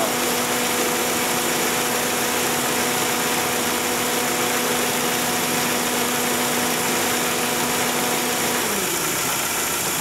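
Dodge Neon four-cylinder engine idling with a cylinder-one misfire, with the steady whine and rushing air of its electric radiator cooling fan. About nine seconds in, the fan shuts off and its whine falls away in pitch as it spins down.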